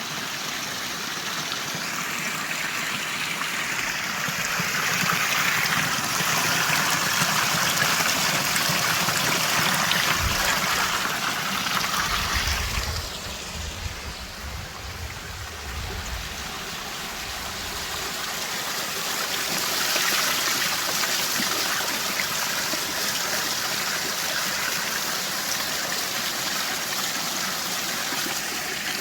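Water rushing over small waterfall cascades, a steady wash of noise that swells and eases, with a low rumble for several seconds near the middle.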